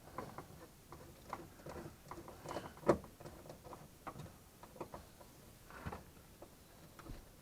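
Scattered light clicks and taps of hand work on a truck door's plastic trim pieces, with one sharp click about three seconds in.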